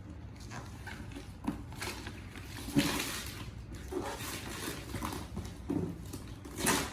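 Rustling and scraping of gift packaging being handled and opened: wrapping and a cardboard toy box. It comes in irregular scrapes, with the loudest bursts about three seconds in and near the end.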